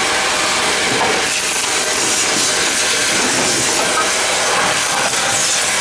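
Vacuum cleaner running steadily with a loud rushing hiss as its wand nozzle is worked over a riveted metal wing structure. The tone of the suction shifts slightly about a second in.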